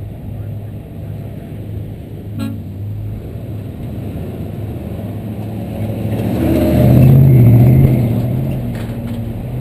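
An older lifted pickup truck passing close by, its engine swelling to a peak about seven seconds in and then fading, over the steady low running of a 2013 Jeep Wrangler JK's engine on sand with wind on the microphone. A single knock about two seconds in.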